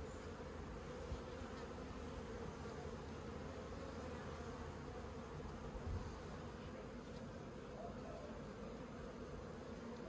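Honey bees humming steadily from an opened top bar hive, a faint, even colony buzz.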